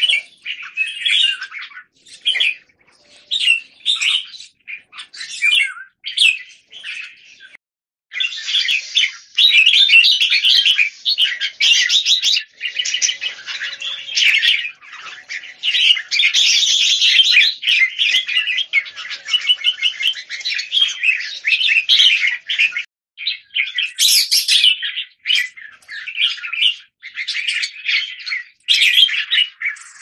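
Red-whiskered bulbul (jambul) calling with clear 'keke' calls during a wing display. Short phrases come about once a second, then from about eight seconds in a dense, nearly unbroken run of calling lasts about fifteen seconds, before the phrases break up again.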